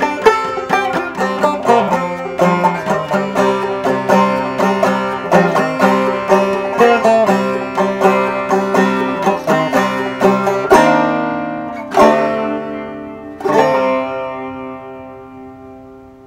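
Clawhammer banjo on an open-back banjo built on a 1920s banjolin rim: a steady rhythmic run of plucked notes and brushed strums, then, about two-thirds of the way in, three slower strummed chords, the last left ringing and fading away as the piece ends.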